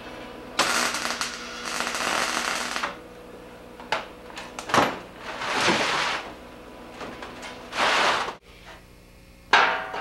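Arc welder tack-welding a corner of a steel frame: a crackling hiss lasting about two seconds, then a few shorter bursts of noise, and a sharp metallic knock near the end.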